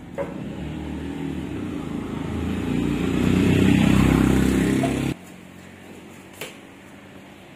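A motor vehicle's engine running close by, growing louder over a few seconds, then cut off abruptly about five seconds in.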